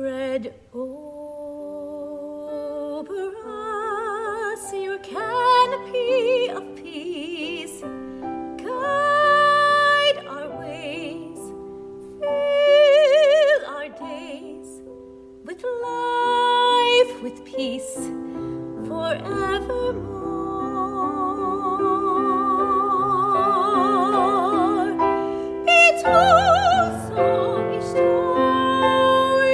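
A woman's singing voice with vibrato, in long held phrases, accompanied by piano. The piano plays steady chords that grow fuller about two-thirds of the way through.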